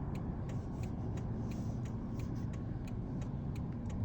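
Steady low rumble with faint, regular ticks about three times a second.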